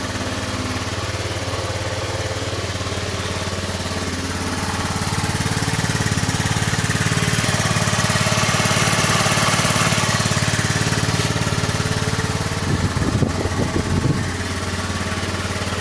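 Honda Dio scooter engine running at idle, rising in speed a few seconds in and holding there for several seconds, then a second or so of uneven pulsing near the end before it settles back to idle.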